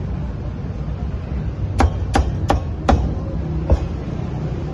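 Meat cleaver chopping cooked pork on a thick wooden chopping block: four quick chops a little more than a third of a second apart, then a lighter one, over a steady low background rumble.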